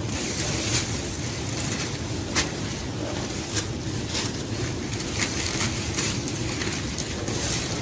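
Dry plant stalks and leaves rustling and snapping in irregular crackles as plants are pulled out of a garden bed by hand, over a steady low outdoor rumble.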